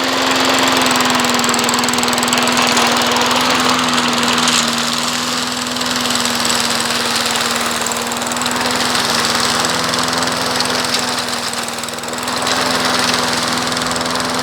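Old lawn mower's small engine running steadily at speed, just after being primed and started. Its level dips briefly about twelve seconds in.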